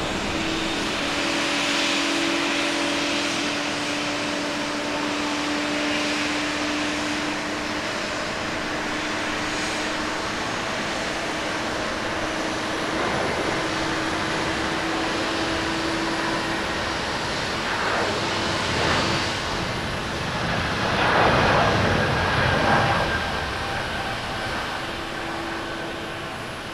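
Jet engines of an All Nippon Airways Boeing 777 at takeoff power during the takeoff roll and rotation: a steady jet roar with a low hum. The sound swells to its loudest about three-quarters of the way through as the plane passes, then fades as it climbs away.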